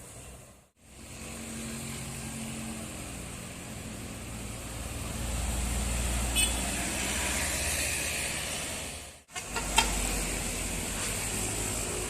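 Heavy tour bus's diesel engine running under load and tyre noise as it passes, the rumble building to its loudest about five to eight seconds in. A short high chirp sounds just past the middle. The sound cuts off suddenly just under a second in and again just after nine seconds.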